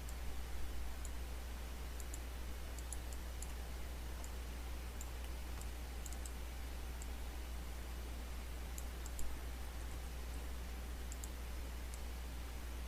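Scattered faint clicks of a computer mouse over a steady low hum.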